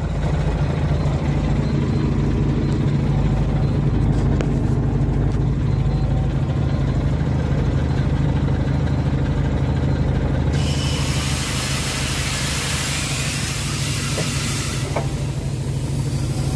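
Truck diesel engine idling steadily; about ten seconds in, compressed air hisses loudly out of the air brake valve for about four seconds, then cuts off sharply. Air escaping through the brake valve's bottom exhaust port when the handbrake is released is the sign of a leaking double-function spring brake chamber.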